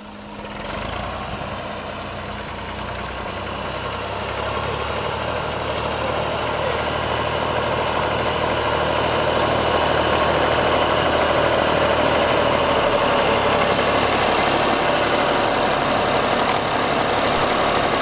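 Old Massey Ferguson tractor's engine running steadily as it pulls through the wheat. It grows louder over the first ten seconds as the tractor approaches, then holds at a steady level.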